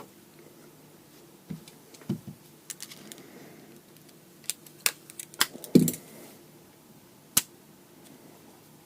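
Metal lightsaber hilt parts clicking and tapping as the clamp card is fitted back onto the hilt: scattered sharp clicks, with a heavier knock just before the six-second mark and a last click near the end.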